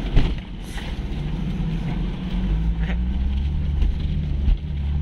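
Off-road 4x4's engine running as it drives through a muddy creek bed, heard from inside the cab, its pitch wavering. Muddy water splashes against the windshield, with a loud hit about a quarter second in and a few lighter knocks later.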